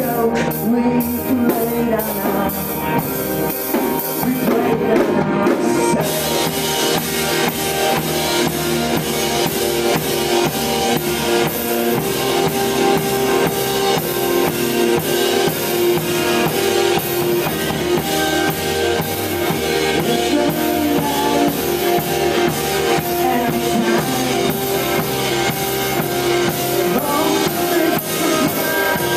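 Live rock band playing: a drum kit keeps a steady beat under electric guitars and bass guitar. The sound gets brighter about six seconds in.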